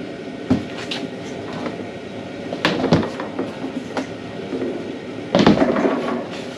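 Portable compressor fridge-freezer being turned around on top of a wooden crate: several knocks and scrapes of the cooler's case against the wood, with a longer, louder scrape about five seconds in.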